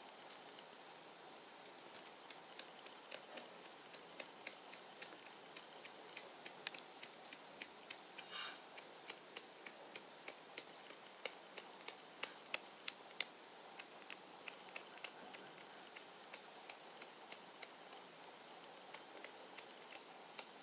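Quiet room hiss with faint, irregular clicks, two or three a second. About eight seconds in, a very young exotic shorthair kitten gives one short, high mew.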